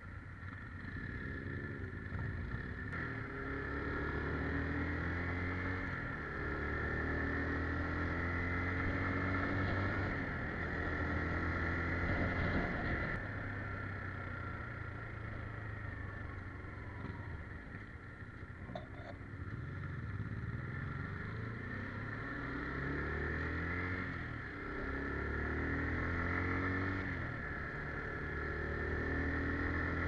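Motorcycle engine heard from the rider's position as it pulls away from a stop and runs along a road, its pitch climbing through each gear and dropping back at the shifts, over a steady rush of wind.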